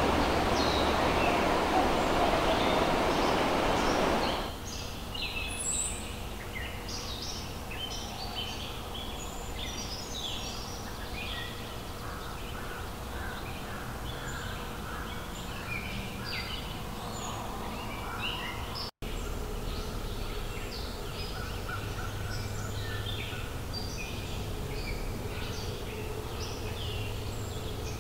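Rushing water for about the first four seconds, cutting off suddenly. Then wild birds chirping and calling, many short high notes over a quiet forest background, with a momentary dropout about two-thirds of the way through.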